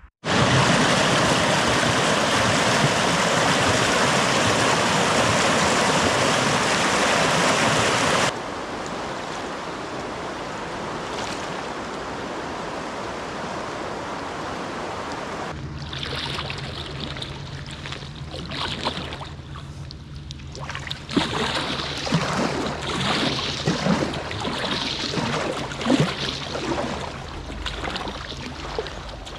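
Fast-flowing river water in flood, rushing steadily and loudly at first, then quieter after a sudden drop. In the last half there are irregular splashes over a low steady hum.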